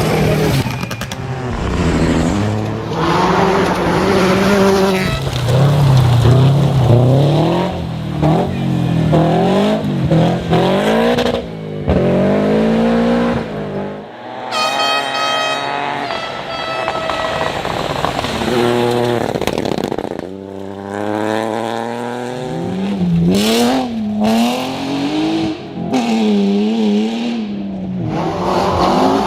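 Rally car engine at full racing pace, its revs repeatedly climbing and dropping back through gear changes. About halfway through the engine note briefly gives way to a higher-pitched tone for a couple of seconds.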